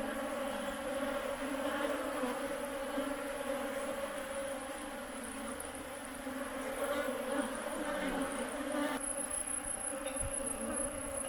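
Swarm of honeybees buzzing in a steady, continuous hum around the opened hive. A thin, high-pitched whine grows louder about nine seconds in.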